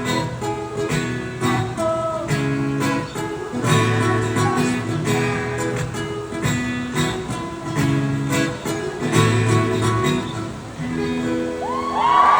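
Live band playing an instrumental passage led by strummed guitar over a steady beat. Near the end the audience starts cheering and whooping.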